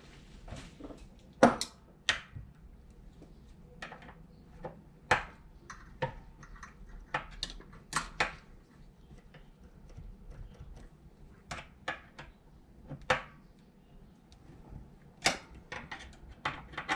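Irregular metallic clicks and taps of a small screwdriver working on the linkage of a bank of aluminium individual throttle bodies, as the linkage adjuster screws are tightened with the throttles held closed. The sharpest click comes about a second and a half in.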